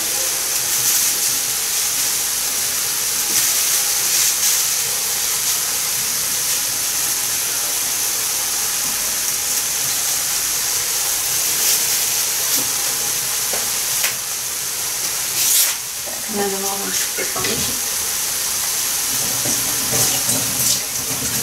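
Chopped vegetables frying in oil in a skillet: a steady sizzle with occasional crackles.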